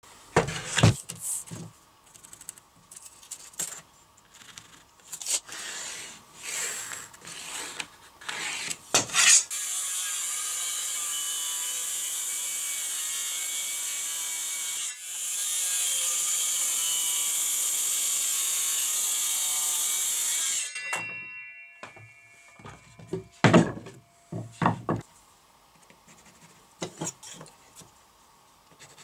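A cordless circular saw runs for about eleven seconds, cutting through a fibreboard sheet, with a short dip in the middle. It then stops abruptly and a fading whine follows as the blade spins down. Before and after it come scattered knocks of the board being handled on a wooden workbench.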